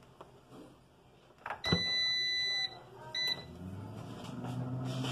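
Instant Vortex Plus air fryer oven starting: a long electronic beep of about a second from its touch panel, then a short second beep. Its fan then spins up, a low hum growing steadily louder.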